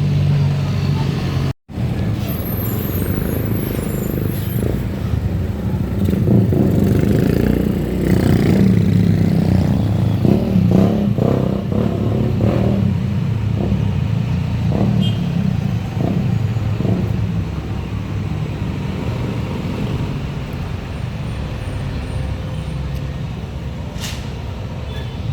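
Bus engine running, with road traffic noise around it; it grows louder for a while in the middle as the vehicle nears, then settles.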